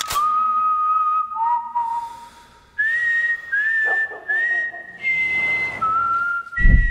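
A person whistling a slow melody, one clear note at a time, each held for about half a second to a second and slid up into at its start, with a short break in the middle. A sharp click sounds right at the start, and deep low thuds begin near the end.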